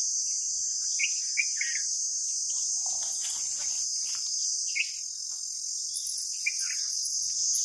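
Steady high-pitched drone of an insect chorus, with a few short bird chirps scattered through it.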